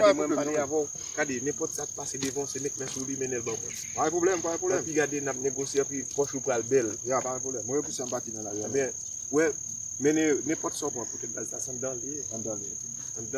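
Insects singing one steady high-pitched note without a break, under a man's voice talking on and off.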